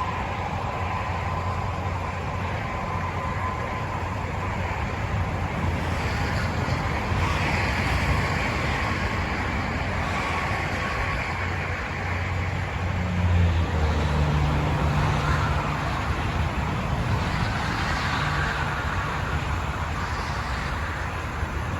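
Steady road noise of a vehicle driving: tyre and engine noise with a low hum and a slight swell about halfway through.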